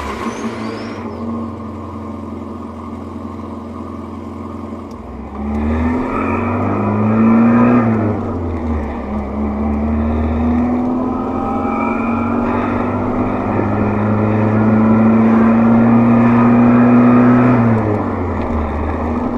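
1987 VW Voyage's AP 1.6 four-cylinder engine with its stock exhaust, driving under way. The engine runs steadily at first. About five seconds in it revs up, then falls back near eight seconds at a gear change. It climbs again in a long pull before dropping near the end.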